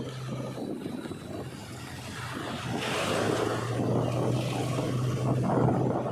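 Diesel engine of heavy earth-moving machinery running steadily, with a rushing noise over it that grows louder about halfway through.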